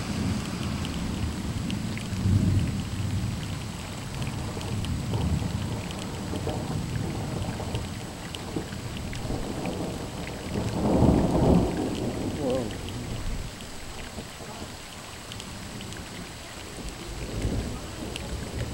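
Thunder rumbling on and off in long low rolls, the biggest about eleven seconds in, over steady rain with scattered drops ticking.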